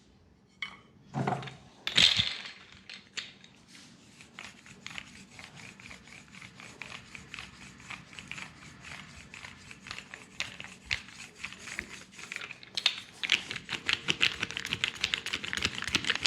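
Fast percussive massage: hands tapping rapidly on a leg, a quick even run of light taps that grows louder about thirteen seconds in. A couple of louder single slaps come in the first two seconds.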